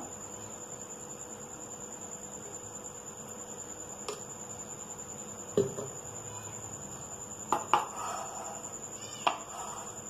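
Ghee melting in a nonstick pan on a gas stove, with a few sharp crackles or clicks: one about four seconds in, one about five and a half, a quick pair about seven and a half, and one about nine. A steady high-pitched whine runs throughout.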